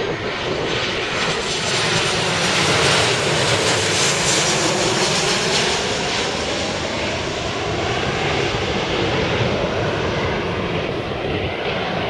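Jet engines of a Boeing 737 airliner coming in to land: a loud, steady rush with a faint tone sliding slowly upward through it.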